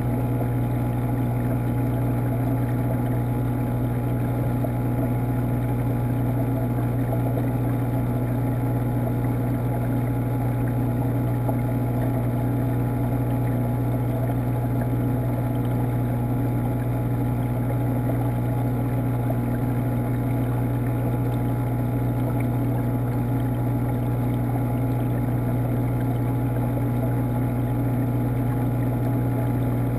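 Steady hum of aquarium water pumps heard through the water from a GoPro in its sealed underwater housing: a strong low drone with a muffled rush of moving water over it, unchanging throughout.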